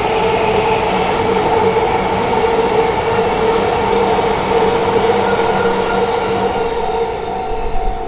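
Electric commuter train running past a Japanese level crossing, with the crossing's electronic warning bell ringing over it in a steady repeated tone. The train noise thins out near the end, leaving the bell.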